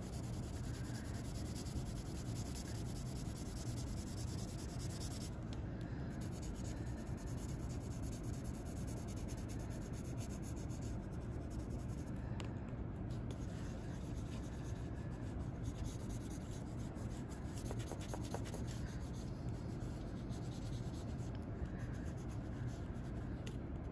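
Wooden graphite pencil shading on paper, the lead rubbing back and forth in quick, continuous strokes.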